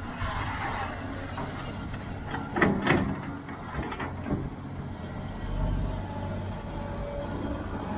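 Sumitomo SH490 hydraulic excavator's diesel engine running steadily as the bucket digs into the trench, with a few knocks and scrapes of the bucket in the soil about two and a half to three seconds in and again around four seconds.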